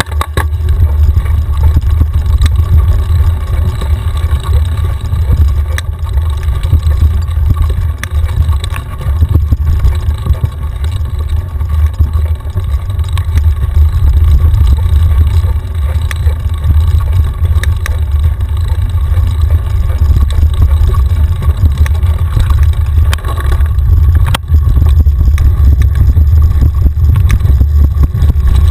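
Mountain bike ridden fast down a dusty dirt singletrack, heard from a camera mounted on the bike: a loud, steady low rumble of wind buffeting and trail vibration, with scattered clicks and knocks as the bike goes over rough ground.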